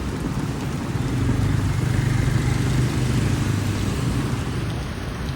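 A vehicle engine running close by, swelling for a couple of seconds and then easing off, over the steady hiss of heavy rain.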